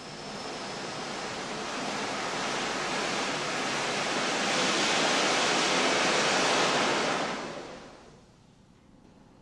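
Steam hissing out low down from a 1925 Hanomag 600 mm gauge steam locomotive, building to a loud, steady rush over several seconds and dying away near the end.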